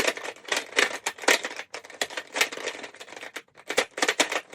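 Layers of a giant plastic Rubik's cube being turned quickly by hand, a rapid irregular run of clicks and clacks as a move sequence is repeated.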